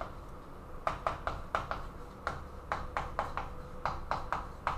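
Chalk writing on a chalkboard: a string of short taps and scratches, about two to three a second, as each stroke lands.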